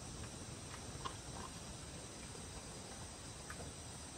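A dog licking and smacking at its food: a few faint, short mouth clicks about a second in and again near the end, over a steady background hiss.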